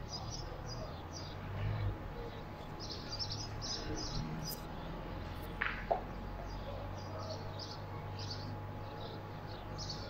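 Small birds chirping: many short, high-pitched chirps in quick clusters, over a steady low background rumble. There is one louder, sharp call a little past halfway.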